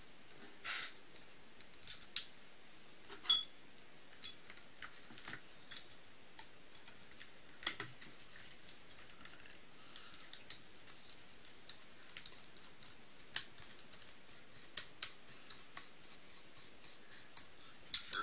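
Irregular small metallic clicks and taps as a hex driver and the engine's mounting screws work against a nitro RC buggy's engine mount and chassis.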